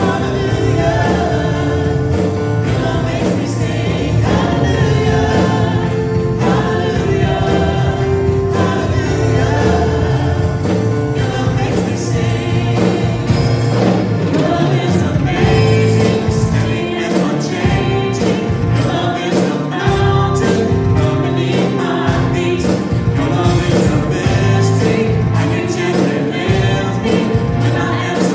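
A small praise band playing a worship song live: several voices singing together over keyboard and guitar, with a steady beat.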